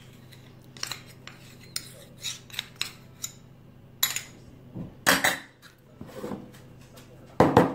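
A metal spoon scraping peanut butter out of a metal measuring cup and clinking against it and a glass bowl, then stirring the peanut butter into yoghurt in the bowl. It is a string of short clinks and scrapes, with the loudest one near the end.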